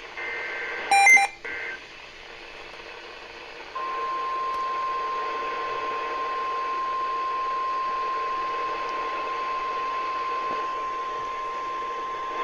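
NOAA Weather Radio emergency alert: a warbling digital SAME header burst of two alternating tones ends in the first two seconds, with a brief loud beep about a second in. After a short hiss, the steady 1050 Hz warning alarm tone starts about four seconds in and holds unbroken for around nine seconds, signalling a warning to follow.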